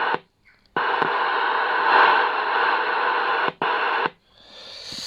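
CB radio speaker hiss (receiver static) switching on and off abruptly in three bursts, each cut off with a click, then a fainter hiss swelling near the end.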